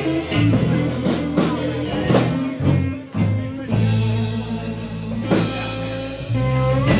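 A live rock band playing an instrumental passage: electric guitar over bass and a drum kit, with a guitar note bent upward near the end.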